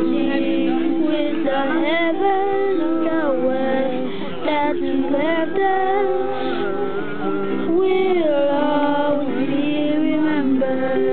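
Women's voices singing a song, accompanied by held chords on an electronic keyboard and a strummed ukulele.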